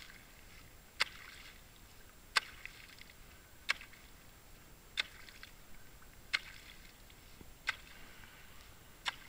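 Hatchet chopping a hole in thin ice: seven sharp strikes a little over a second apart, each followed by a brief crunch of breaking ice.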